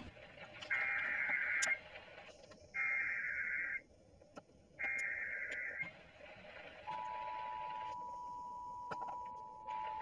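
Emergency Alert System header over AM radio: three one-second bursts of screechy digital SAME data tones, then the steady two-tone attention signal starting about seven seconds in. It marks the start of an alert broadcast, here a severe thunderstorm warning.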